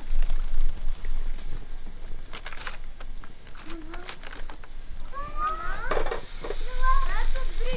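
Food sizzling in a frying pan: a steady frying hiss.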